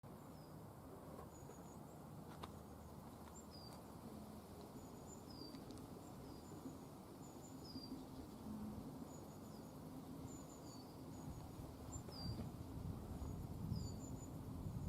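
Faint outdoor ambience: a small bird repeating short, high chirps, some dropping in pitch, over a low rumble that grows louder near the end.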